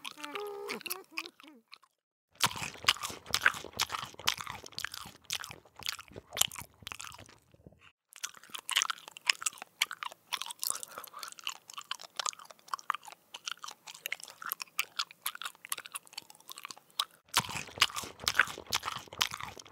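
Augmented crunching and chewing sounds of a praying mantis eating a grasshopper: dense, irregular crackles that come in long stretches, broken by two short silent pauses.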